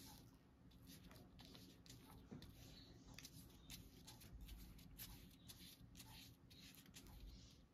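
Faint, irregular scratchy strokes of a small paintbrush scrubbing thick paint around on a piece of card, mixing yellow and green.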